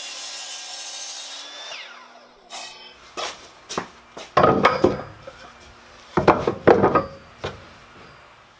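Ryobi miter saw running through a cut in a 2x4, then its motor spinning down with a falling whine about two seconds in. After that, a series of wooden knocks as cut 2x4 blocks are set down on a plywood deck, loudest in two clusters around the middle.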